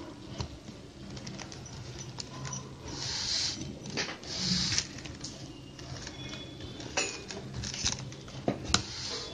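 Plastic koodai wire rustling and scraping as it is threaded and pulled through a woven plastic basket, with scattered small clicks, two longer swishes about three and four and a half seconds in, and a sharp click near the end.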